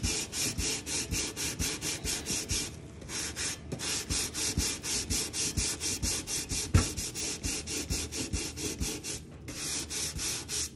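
Rapid back-and-forth scrubbing of a Scrub Daddy sponge with gritty Pink Stuff paste on a toaster's top, about five gritty scraping strokes a second. The strokes stop briefly twice, about three seconds in and near the end.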